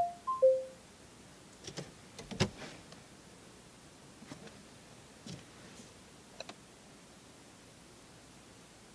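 Garmin DriveSmart 60 navigation unit sounding three quick electronic beeps, a middle, a higher and a lower tone, as it confirms the spoken command. A few faint clicks and taps follow.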